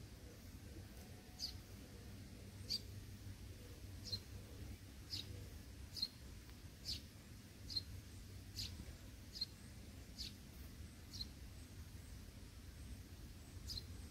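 A small bird chirping over and over, one short high chirp about every second, pausing for a couple of seconds near the end, over a faint low steady hum.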